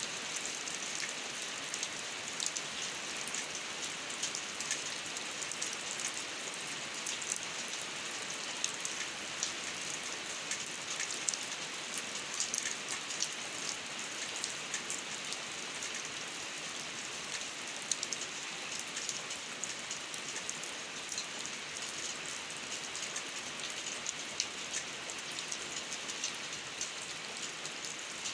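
Steady rain falling on a wet concrete drainage ditch and the grass beside it: an even hiss dotted with many small, sharp drop splashes.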